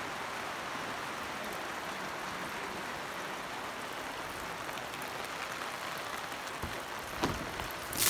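Steady rain falling on a canopy tent, water running off its edge in streams. Two sharp knocks come near the end.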